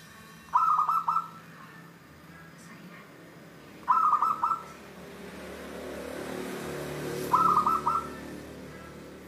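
Local zebra dove (perkutut) cooing: three short phrases of quick, clipped notes, each under a second and about three seconds apart.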